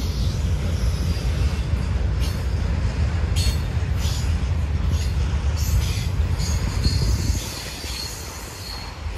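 Freight train cars rolling past with a low rumble and repeated high-pitched wheel squeal; the rumble eases off about seven seconds in.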